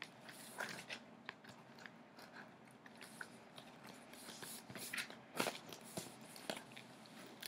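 Scissors snipping and cutting through packing tape and plastic wrap on a cardboard box, an irregular series of crisp, crunchy snips and crackles, with a few louder snaps about five and six seconds in.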